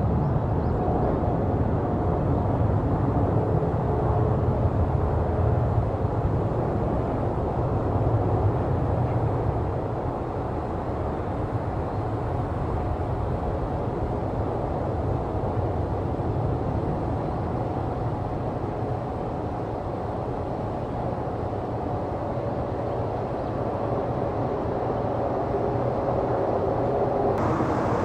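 Jet airliner engines running, a steady rumble with faint whining tones, a little louder in the first ten seconds and then easing slightly.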